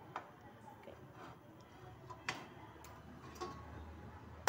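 A few faint, scattered sharp clicks over a quiet kitchen background, with two louder clicks near the end.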